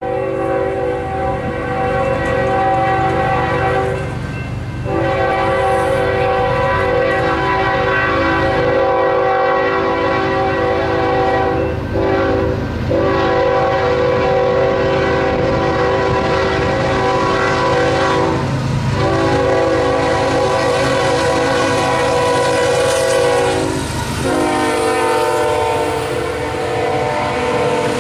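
Air horn of a Union Pacific GE ES44AC lead locomotive sounding a string of long blasts with one short blast in the middle, the grade-crossing signal, over the steady rumble of the approaching stack train.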